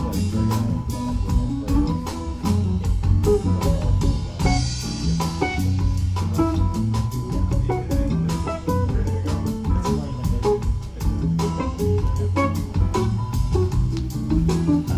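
Recorded music with a bass line and a steady beat of drum strikes, played from a vinyl record on a VPI Vanquish turntable through Genesis loudspeakers in the room.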